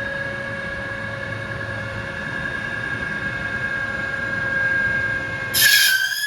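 Alloy wheel CNC lathe running with a steady high whine over a low hum. Near the end a short, louder hissing screech breaks in.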